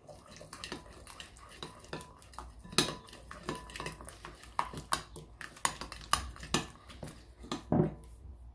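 Metal spoon stirring a thick spiced yogurt marinade in a glass mixing bowl: irregular clinks and scrapes of spoon against glass, a few a second.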